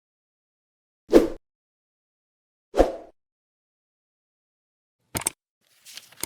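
Whoosh transition sound effects: two short swooshes about a second and a half apart, then two quick, crisp double swishes near the end, with dead silence between them.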